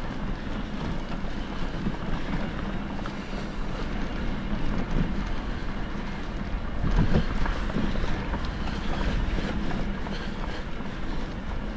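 Wind buffeting a moving action camera's microphone, with a steady low hum underneath and a brief swell in loudness about seven seconds in.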